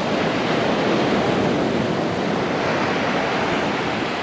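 Ocean surf breaking and washing up a sandy beach: a steady rushing that swells slightly about a second in.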